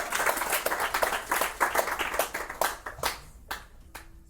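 Small audience clapping, the applause thinning out to a few scattered last claps and dying away near the end.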